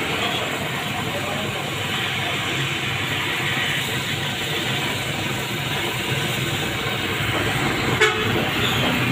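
Steady street noise of road traffic, with faint voices in the background, and one sharp knock about eight seconds in.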